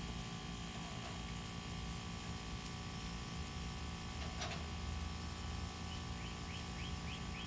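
Steady background hum with a quick series of short chirps, about four a second, in the second half, and a single click a little past the middle.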